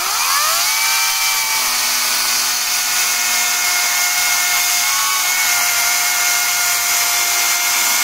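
Einhell GE-LC 36/35 Li cordless electric chainsaw, run on two 18 V batteries, spinning up with a rising whine over about a second, then running steadily as its chain cuts through a 10×10 cm square timber.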